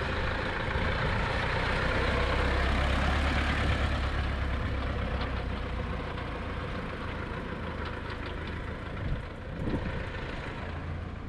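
1954 MAN 4x4 tractor's diesel engine running as the tractor is driven across the yard. It is loudest a few seconds in and fades as the tractor pulls away.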